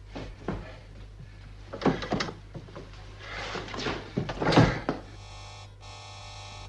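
Knocks, thumps and rustling as a coat is pulled off a hanger in a metal wall locker, the loudest thump just before five seconds in. About five seconds in a steady electronic hum with several tones sets in.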